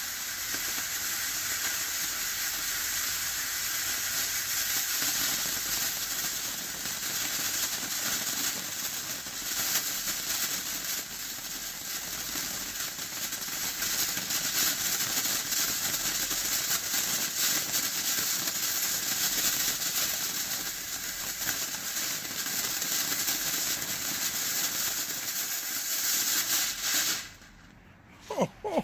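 TNT "Pinata Buster" single-tube firework fountain burning with a steady hiss of spraying sparks, then cutting out abruptly near the end. Quiet, with no bangs, as a safe and sane fountain.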